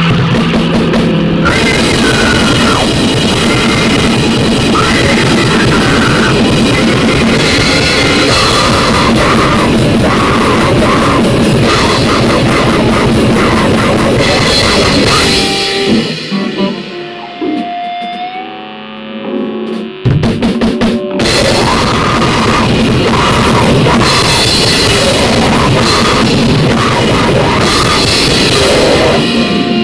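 Loud, harsh noise music: a dense wall of distorted noise with rapid, drum-like pounding hits. About halfway through it drops away for several seconds into a sparser, quieter stretch of a few held tones and stutters, then the full wall of noise comes back.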